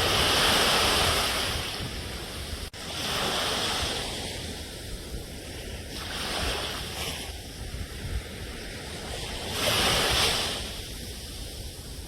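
Ocean waves washing onto a shore: four swells of hissing surf, the loudest at the start and about ten seconds in, over a steady low rumble of the sea.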